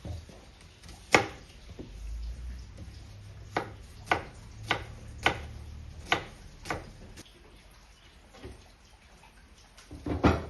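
Chopping: a series of sharp knocks about half a second apart, then a closer cluster of louder knocks near the end.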